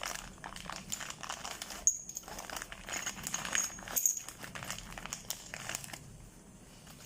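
Plastic packaging crinkling and rustling, with small clicks and knocks, as the parts of a new motorcycle steering-head bearing kit (cone set) are handled. It dies down near the end.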